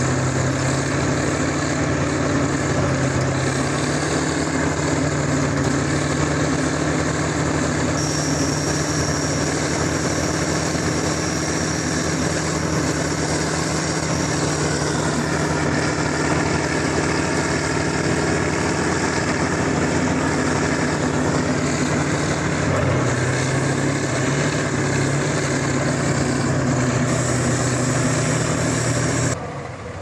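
Diesel engines of Kirovets K-700-series articulated tractors working hard, one dragging the other out of deep mud on a cable: a loud, steady heavy engine drone whose pitch steps up and down a few times as the revs change. The sound drops off abruptly just before the end.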